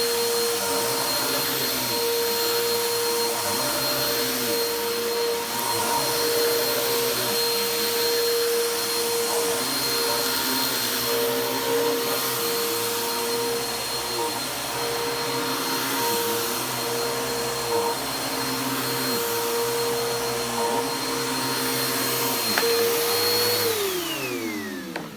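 Upright vacuum cleaner running with a steady motor whine, then switched off near the end, its pitch falling as the motor spins down.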